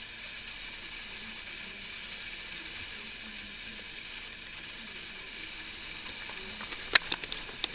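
Steady background hiss, broken near the end by a quick run of sharp clicks and taps.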